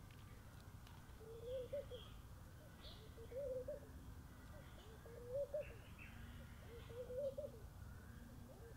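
A dove cooing off-screen: a short, low, wavering phrase repeated about every two seconds, four times, with a fifth beginning near the end. A few faint high chirps sound above it.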